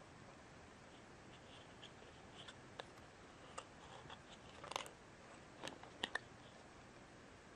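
Faint handling noises of a coiled USB charging cable in its clear plastic wrap: scattered light clicks and brief rustles as fingers turn it over, the sharpest ticks coming near the middle and about six seconds in.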